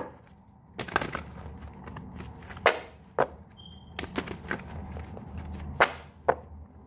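A tarot deck being shuffled and handled: a handful of sharp card snaps and taps at irregular intervals, with soft rustling between them.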